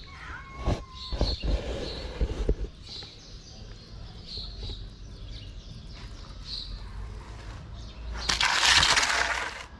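Small birds chirping in short, repeated calls, with a few knocks in the first few seconds. About eight seconds in, a loud burst of rushing, hiss-like noise lasts over a second.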